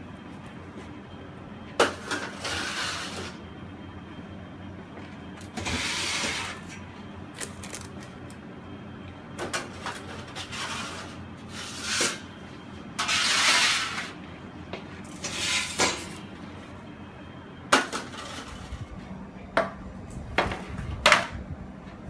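Metal baking sheets being slid out of a commercial oven and along a tray rack: repeated scraping slides, each a second or so long, and sharp metal clanks, the sharpest in the second half.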